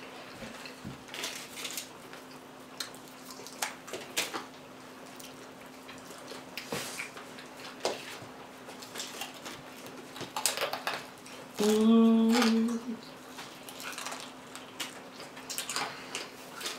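Close-up crunching and chewing of Doritos tortilla chips dipped in cheese, many short crisp crunches. About two-thirds in, a loud hummed 'mmm' of enjoyment lasting a second or so.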